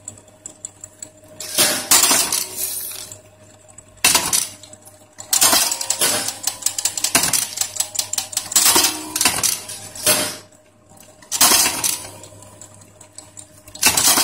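Metal shoelace tipping machine working: bursts of sharp metallic clanking and rattling, about every two to three seconds, as it crimps metal tips onto lace ends. A dense run of clicks fills the middle, and a low steady hum runs between the bursts.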